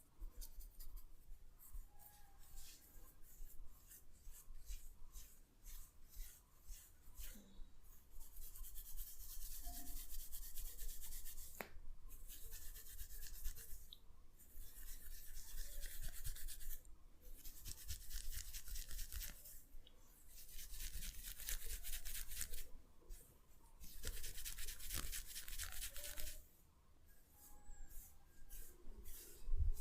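Fingers rubbing and scratching fast through hair and over the scalp in a head massage: rapid rustling strokes in runs of a few seconds, with short pauses between.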